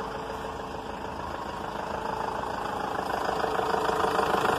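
Renault G9U 2.5 dCi four-cylinder turbodiesel idling steadily at about 800–900 rpm, freshly rebuilt with new crankshaft, bearings, rings, connecting rods and cylinder head. Its rapid diesel clatter grows louder over the last couple of seconds as the open engine bay is neared.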